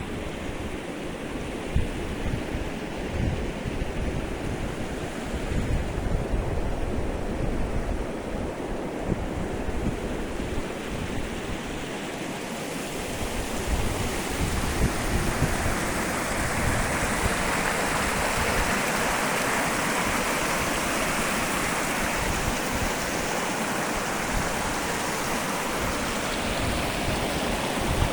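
Steady rushing of running water, with wind buffeting the microphone in gusts. About halfway through, the water becomes louder and brighter.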